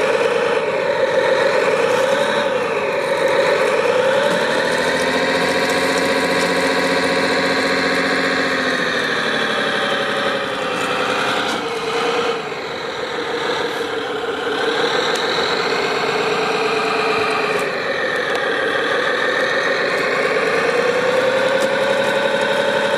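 Motor of a radio-controlled construction model running continuously, its pitch rising and falling again and again as the machine speeds up and slows down.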